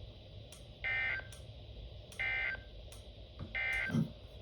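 NOAA Weather Radio broadcasting three short buzzy bursts of SAME digital data tones, each about half a second long with a second's gap between them: the end-of-message code that closes a weekly tone-alert test. A faint hiss with light ticks lies under them.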